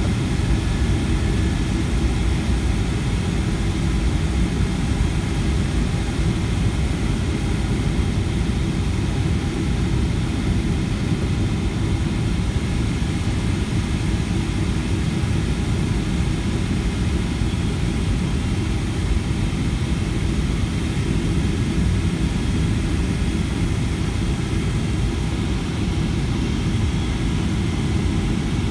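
Cabin noise of a Boeing 757-200 on final approach, heard from a window seat beside the wing-mounted jet engine: a steady low rumble of airflow and engine, with a faint steady whine over it.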